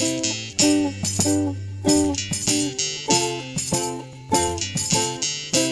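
Instrumental music: a strummed plucked-string instrument playing chords in a steady rhythm, about two strums a second, each ringing and fading before the next.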